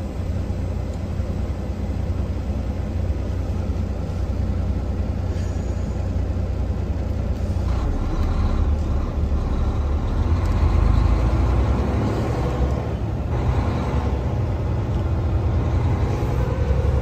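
Semi-truck diesel engine and road noise heard inside the cab while driving: a steady low rumble that grows a little louder about ten seconds in.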